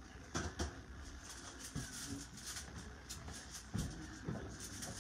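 A few light knocks and clatter at an open kitchen oven as the dish inside is checked: two quick knocks about half a second in, then two more near the four-second mark.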